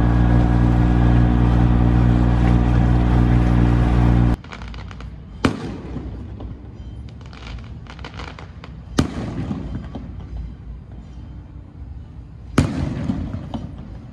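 Sailboat's inboard diesel engine running steadily under way. About four seconds in it cuts off, and fireworks follow: three sharp bangs a few seconds apart, with crackling between them.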